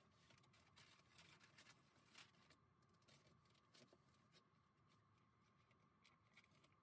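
Very quiet handling sounds: faint rustling and small ticks of a stiff white sheet being pressed and smoothed by hand onto a plywood cabinet top, busiest in the first two seconds, over a faint steady hum.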